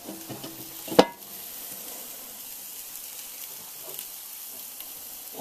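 A cast-iron clank about a second in as the inverted camp-oven lid is shifted on the deep camp oven, the metal ringing briefly. After it comes a steady sizzle from the ribs cooking over charcoal briquettes inside the oven.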